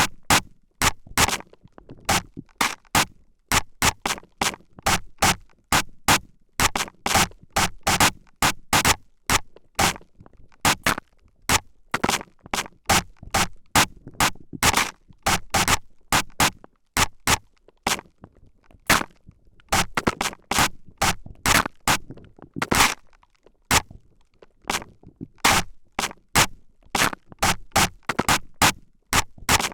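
A spray bottle squirting short bursts of spray at very close range, in quick, irregular squirts about two or three a second, alternating between the left and right ears.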